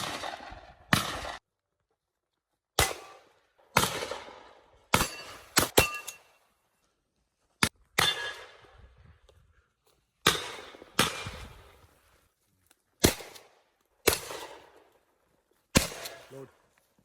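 Shotgun firing a string of about a dozen shots at irregular intervals of roughly one to two seconds, each shot followed by a short ringing tail, with a few quick pairs close together.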